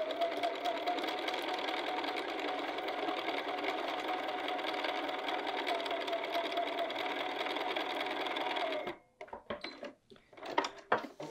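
Bernina sewing machine stitching at a steady speed through several layers of fabric, then stopping abruptly about nine seconds in. A few small clicks and rustles of handling follow.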